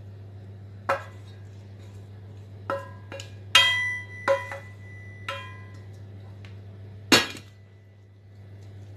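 A wooden spoon knocking and scraping browned minced meat out of a pot into a glass baking dish: about eight sharp, ringing knocks against the crockery, loudest about three and a half seconds in and just after seven seconds. A steady low hum runs underneath.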